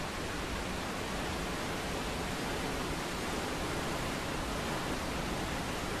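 Steady rushing of a mountain waterfall, an even, unchanging roar of falling water.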